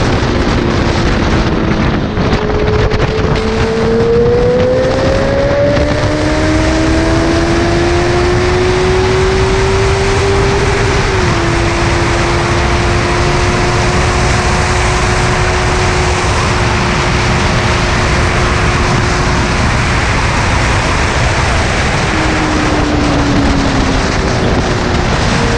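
Motorcycle engine pulling at highway speed. Its note rises for several seconds, drops suddenly at an upshift about eleven seconds in, holds steady, then falls away as the throttle eases near the end. Heavy wind rush over the microphone.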